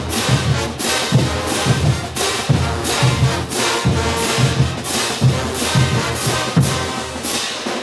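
Bolivian brass band playing a morenada: rows of crash cymbals clashed together about twice a second over bass drums, snare drums and a full brass section of trumpets, trombones and sousaphones.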